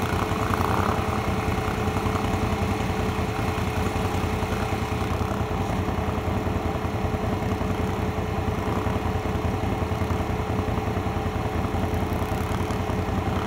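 ATV engine running steadily at an even pitch, with no revving.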